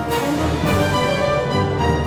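Instrumental theme music with held notes over a regular beat.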